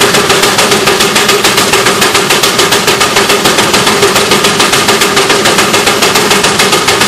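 Steam traction engine running, its exhaust chuffing in a steady, even beat of about four a second.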